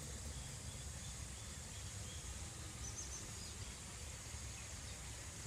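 Outdoor background ambience: a low, steady rumble with a few faint, high, short chirps about halfway through.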